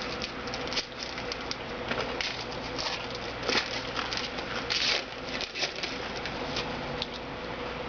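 Trading cards and pack wrappers being handled: a string of irregular light rustles and ticks, a few louder ones around the middle, over a steady hiss and a faint hum.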